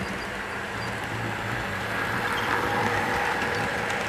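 HO scale model trains running on the layout's track: a steady rumble of motors and wheels on the rails, growing louder in the second half as a model freight train passes close by.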